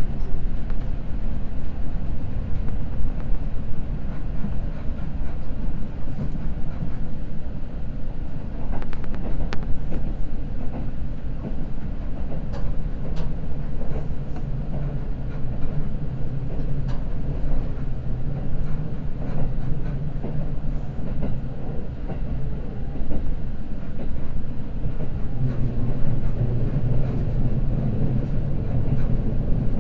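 Seibu Red Arrow limited express train running at speed between stations, heard from inside the passenger car. A steady low rumble is broken by scattered clicks of the wheels over rail joints.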